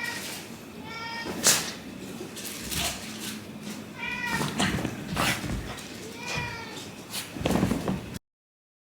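Shiba Inu giving a series of short, high, falling whines, typical of a dog begging for its treat, mixed with a few sharp knocks. The sound cuts off suddenly near the end.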